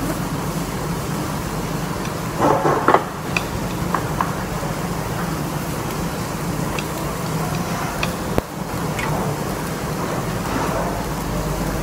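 A steady, even hiss of background noise, with a few short light clicks of metal chopsticks against dishes and a brief louder clatter about two and a half seconds in.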